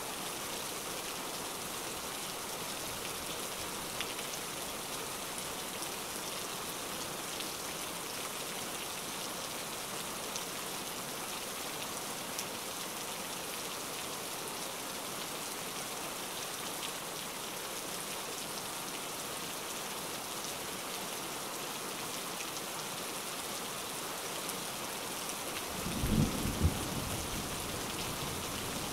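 Steady rain falling, with a brief low rumble of thunder near the end.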